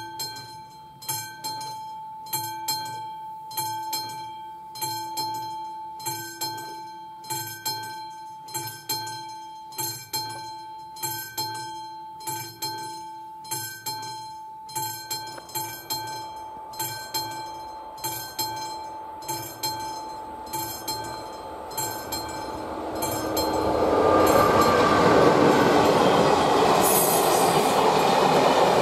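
Level-crossing warning bell (the classic bell of an AŽD 71 crossing) starts ringing in a steady even rhythm as the crossing activates. From about halfway, the rumble of an approaching train grows. Near the end, a passenger train passing over the crossing is the loudest sound and drowns out the bell.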